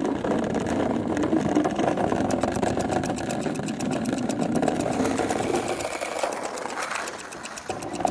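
Skateboard wheels rolling over pavement: a steady, gritty rumble that fades out near the end.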